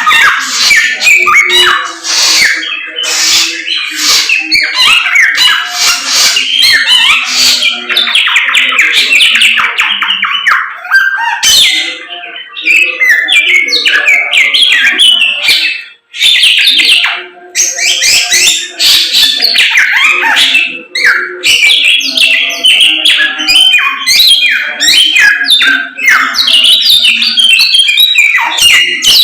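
Caged Samyong songbird singing loudly and continuously in rapid high chirps and trills, with a short break about halfway through: the bird in full 'gacor' song.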